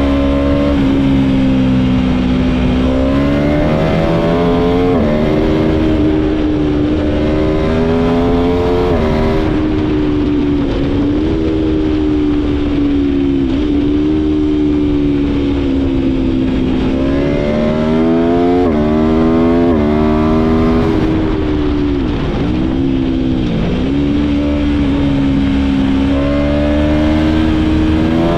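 Aprilia Tuono V4 engine pulling hard through the gears: the revs climb and snap down again in a series of quick upshifts, with a couple of sharp dips and recoveries a little past the middle, over steady wind rush.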